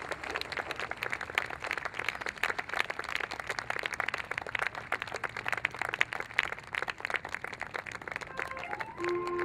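Outdoor audience applauding: many hands clapping in a dense, irregular patter. Near the end, steady musical notes come in.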